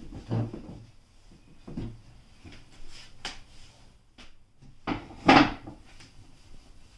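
Wooden dining chair being handled and knocked: a few light knocks, then a louder bump about five seconds in.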